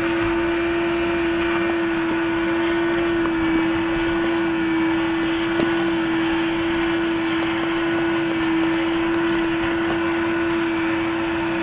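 Vacuum cleaner motor running steadily with a constant hum, sucking up sawdust from the ground, with a couple of faint clicks.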